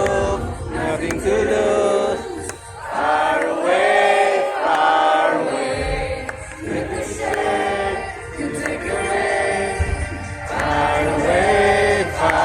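A song playing, with a choir of voices singing the melody over a low accompaniment.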